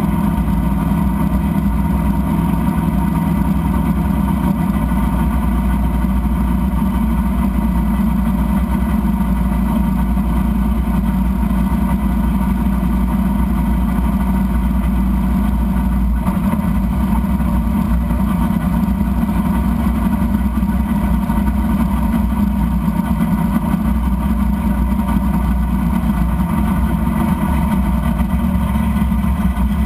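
Drag car's engine running steadily at low revs with no revving, heard from inside the cabin.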